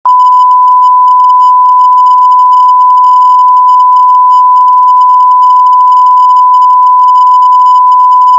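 Loud, steady electronic test tone: one unchanging beep-like pitch held without a break, with nothing else heard.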